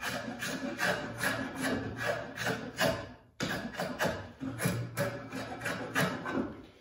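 Draw knife shaving the corners of a white oak stick in quick short strokes, about three a second, each a dry scrape of the blade through the wood. The strokes break off briefly about three seconds in, then resume and fade near the end.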